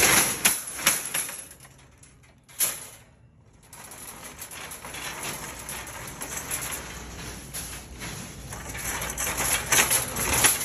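Shopping cart clattering as it is pulled free from a nested row of carts, then rattling as it is pushed across a store floor, with a brief lull about two seconds in.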